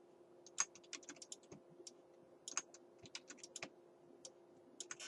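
Faint computer keyboard and mouse clicks: scattered, irregular taps in small clusters, made while entering shortcut keys to duplicate and place objects in Blender. A faint steady hum lies underneath.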